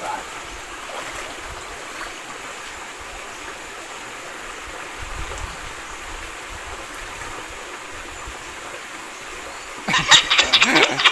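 Steady rushing of a shallow mountain stream running over rocks. About ten seconds in, louder sharp sounds break in with a voice.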